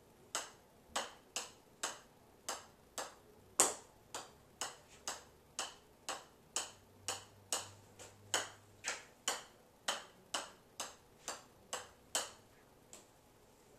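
Golf ball bouncing again and again on the face of a golf iron: sharp clicks at about two a second, one much louder hit a few seconds in, stopping about a second before the end.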